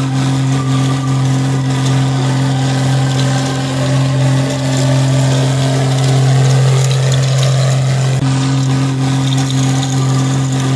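A motor vehicle engine running steadily at idle: a loud, even, deep hum that stays at one pitch throughout.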